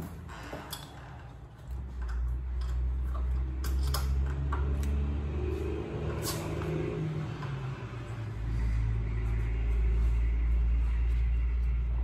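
A low rumble starts about two seconds in, eases off, then comes back louder and steady past the eighth second. Over it are a few sharp metallic clicks and clinks of the door-knob lockset hardware being handled and fitted to the door.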